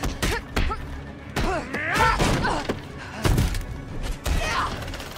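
Animated martial-arts fight sound effects: a run of sharp punches, thuds and whacks, with fighters' effort yells in between, over film score.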